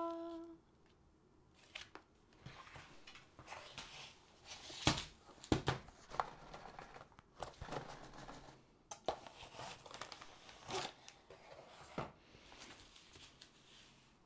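Plastic bags and paper wrapping crinkling and rustling as a diamond-painting kit's contents are lifted out of a small cardboard box, with scattered light knocks as the pieces are handled and set down. The two sharpest knocks come about five seconds in.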